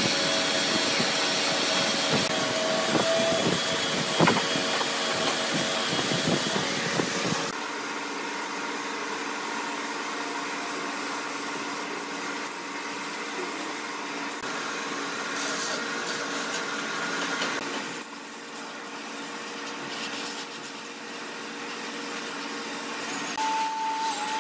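A handheld electric power tool running along a solid-wood slab tabletop, with a steady whine and a few knocks. About seven seconds in it gives way to the steady hiss of a compressed-air spray gun spraying finish onto the wood.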